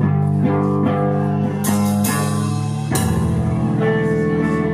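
Live rock band playing: electric guitars and bass holding sustained, ringing chords over the drum kit, with several cymbal crashes in the middle.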